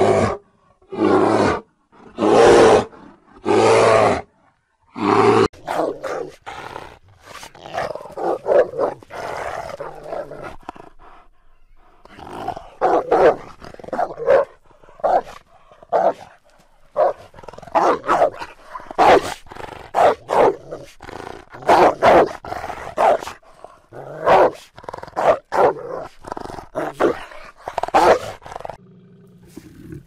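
Brown bears roaring in five loud calls about a second long each, evenly spaced, then a long stretch of wolves growling and giving many short, sharp yelps and barks.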